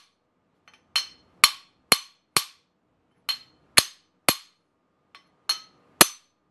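Hand hammer striking the end of an old steel kingpin, driving a new bronze bushing into a Club Car Precedent steering spindle. About ten sharp metallic blows, roughly two a second, come in groups of four, three and three with short pauses between, each with a brief ring.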